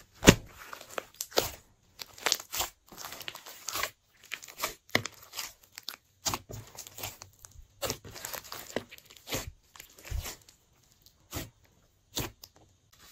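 Clear glitter slime being squeezed, stretched and pressed by hand, giving irregular sticky crackles and pops with short gaps between them. The sharpest pop comes right at the start.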